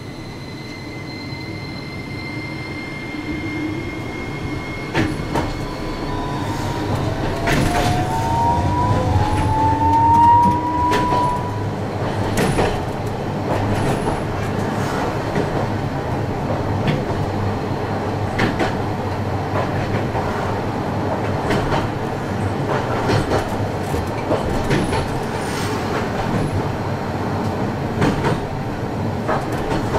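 Toyohashi Railroad T1000 low-floor tram pulling away, its traction motor whine rising in pitch as it gains speed. It then runs along the street track with a steady rumble and frequent clicks of the wheels over the rails. A steady high tone sounds in the first few seconds and stops.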